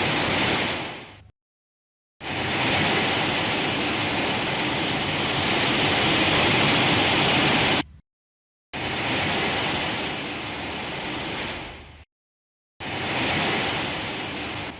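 A series of hissing, rushing-noise sound effects from the 1984 Godzilla film: four separate clips, the longest running steadily for about six seconds, each cut off or fading into silence before the next begins.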